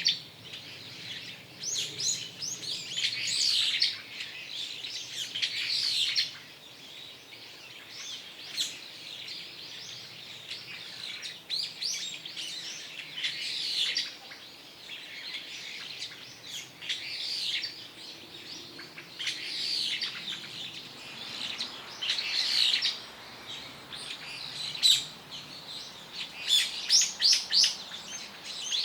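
Small songbirds chirping and singing, short high calls and trilled phrases coming every second or two, with a quick run of chirps near the end.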